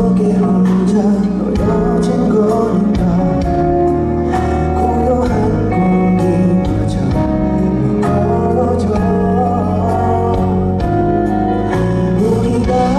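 A male singer singing a song live over instrumental accompaniment with sustained bass notes and a steady beat.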